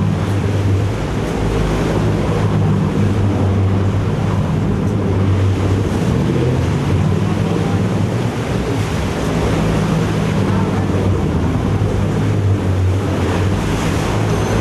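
Boat engine running steadily with a low drone, over water rushing and splashing past the hull and wind buffeting the microphone.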